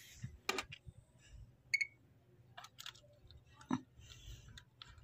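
Faint scattered knocks and clicks of a brick being set down and shifted on a plastic lid over a stack on a wooden board. The loudest knock comes a little before four seconds in.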